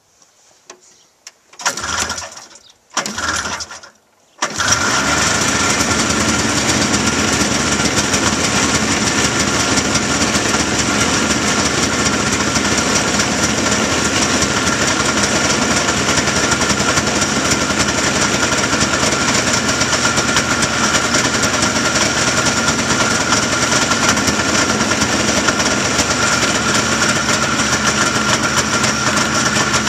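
1976 John Deere 340 Cyclone snowmobile's Kioritz two-stroke engine on a cold start: it fires briefly twice, then catches about four and a half seconds in and runs steadily at idle.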